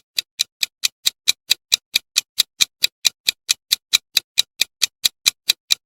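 Countdown-timer clock ticking: sharp, even ticks at about five a second.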